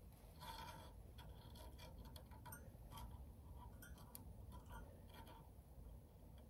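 Faint, irregular light ticks and taps of metal as the brass burner of an Eltex kerosene greenhouse heater is handled while its wick is lit with a match.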